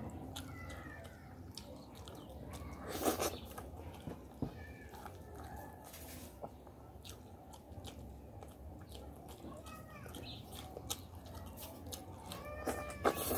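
Close eating sounds: wet chewing, lip smacks and mouth clicks while roast chicken is torn and eaten by hand, with a louder smack about three seconds in and another near the end. A few short high cries that rise and fall, like an animal's call, come through about half a second in, mid-way and near the end.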